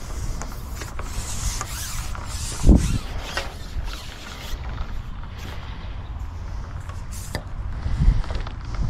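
Handling noise from a long take-apart carbon fishing pole being worked: scattered creaks, rubs and clicks, with a heavier knock about three seconds in.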